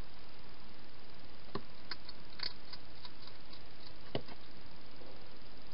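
A wild hedgehog eating from a bowl inside a plastic feeding box: irregular sharp clicks and ticks of chewing, two of them louder, over a steady hiss.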